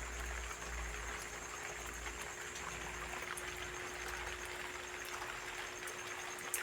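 Rain falling, a steady patter of many small drops, with a faint steady hum underneath and one sharper tick near the end.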